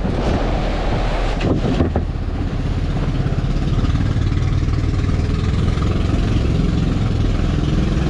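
A fishing boat's engine running steadily with a low drone, over wind and sea noise.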